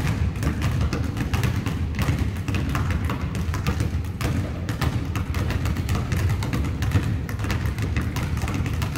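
Several basketballs dribbled at once on a gym's hardwood floor: many overlapping, irregular bounces.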